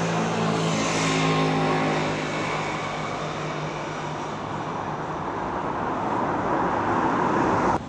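A motor vehicle running close by, its engine hum under a rushing road noise that grows louder near the end and cuts off suddenly.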